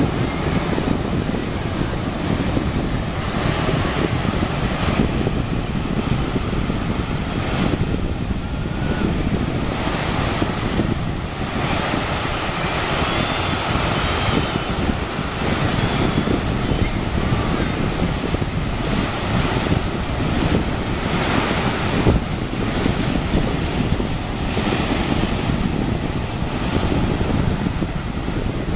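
Ocean surf breaking and washing up the beach, with wind buffeting the microphone as a steady rumble.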